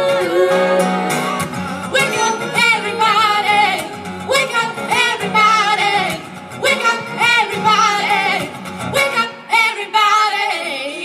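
Several young women's voices singing together in harmony through microphones and PA speakers, over acoustic guitar accompaniment. The guitar drops out about nine seconds in, leaving the voices singing alone.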